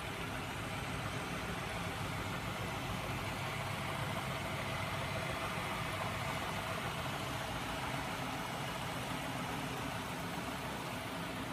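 Home-built magnet engine running steadily: its 12-volt DC electric motor whirs while the flywheel and crankshaft spin, giving an even mechanical hum that does not change.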